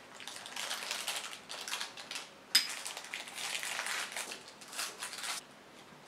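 Thin plastic bag crinkling and rustling as it is handled, filled and folded in the fingers. About halfway through there is one sharp clink of a metal spoon set down against a ceramic bowl. The crinkling stops shortly before the end.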